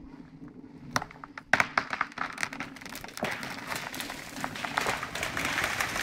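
A large felled conifer breaking at its hinge and going over: a run of sharp wood cracks and snaps from about a second in, then a swelling rush of branches sweeping down through the neighbouring trees, with the heavy thud of the trunk hitting the ground just beginning at the very end.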